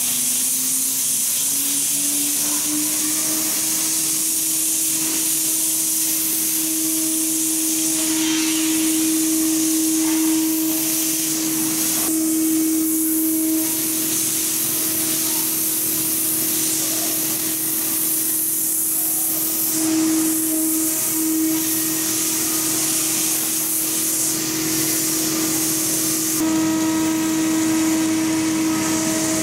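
Blue Elephant ELE1325 CNC router spindle running with a steady whine while its bit cuts a clear plastic sheet, with a loud hiss of cutting over it. The whine climbs in pitch over the first few seconds, then holds, and the sound shifts slightly near the end.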